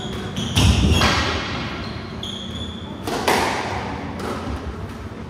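Squash rally: sharp, echoing smacks of racket on ball and ball off the court walls, about half a second in, about a second in and again just past three seconds, with brief squeaks of court shoes on the wooden floor in between.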